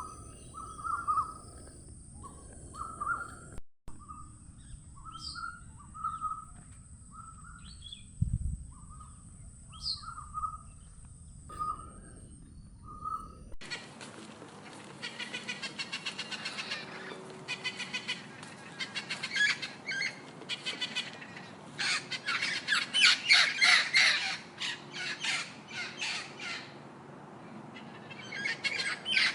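Birds calling: short repeated notes at first over a steady high whine, then, after a sudden change about 14 seconds in, a dense run of harsh, raspy squawks and caws, loudest a little past the middle.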